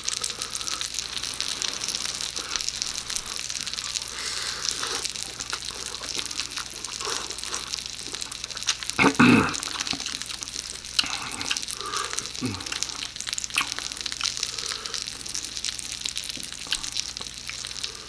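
Close-up wet chewing and slurping of ramen noodles: continuous moist smacking with many small clicks, and a louder burst about nine seconds in.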